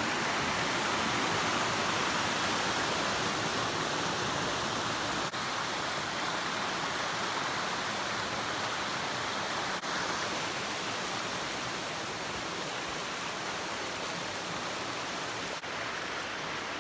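Steady rushing of a small forest creek running over rocks and fallen logs.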